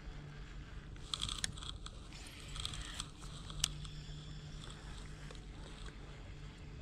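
Clicks and rattles of a baitcasting rod and reel being handled and cranked, in two short clusters about one and two and a half seconds in, the second ending in a sharp click. A low steady hum runs underneath.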